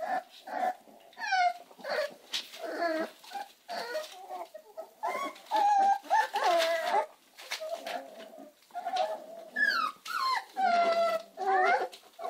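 American Staffordshire terrier puppies whimpering and squealing: a steady run of short, high calls, several sliding down in pitch.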